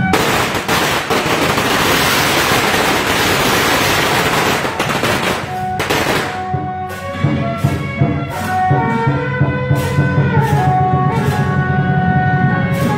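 A string of firecrackers crackling rapidly for about the first six seconds over procession music. After that the music carries on alone, a horn-like melody over steady percussion beats about one every three-quarters of a second.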